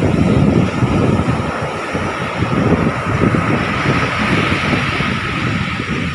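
Wind buffeting the microphone in a gusty, fluttering rumble, over a steady hiss that swells slightly about four seconds in.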